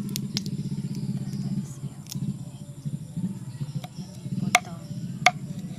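A small engine running with a steady, rapid low pulsing that drops somewhat in level just under two seconds in. A few sharp clicks and short chirps sound over it.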